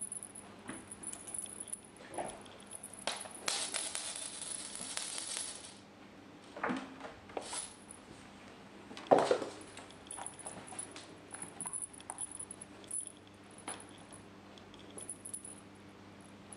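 Kittens playing at a sisal-rope scratching post: scattered light taps, rustles and rattles, with a stretch of scratching a few seconds in and a single louder knock about nine seconds in.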